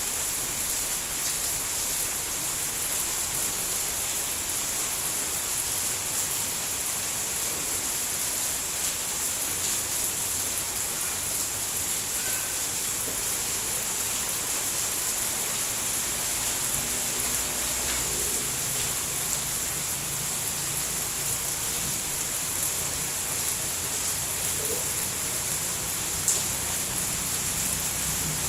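Steady rain falling, an even unbroken hiss with one brief louder tick near the end.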